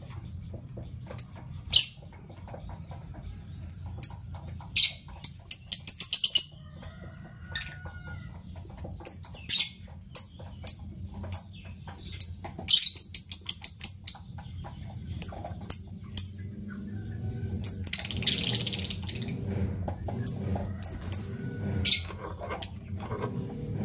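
Lovebirds calling: sharp, high-pitched single chirps every second or so, with quick runs of chirps about five and thirteen seconds in and a rougher noisy burst lasting about a second near eighteen seconds, over a low steady hum.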